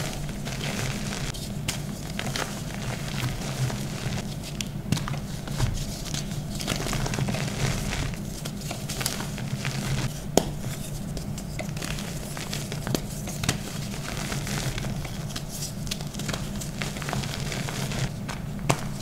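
Hands squeezing and crumbling blocks of dyed gym chalk into powder: a dry crunching and crackling with scattered sharp snaps, the loudest about halfway through. Near the end it turns to a softer rustle of fingers working the loose powder.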